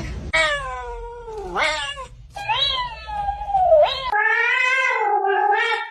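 Domestic cat meowing in a series of long, drawn-out yowls that slide up and down in pitch, about four calls in all. A longer, steadier yowl starts about four seconds in.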